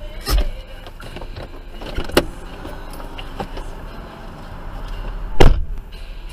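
Car collision: a loud bang about five seconds in, after two smaller knocks, over a steady low vehicle rumble.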